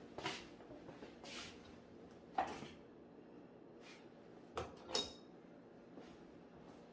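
A handful of short, light knocks and clicks, about five in all, with the sharpest one about two and a half seconds in and a close pair near five seconds.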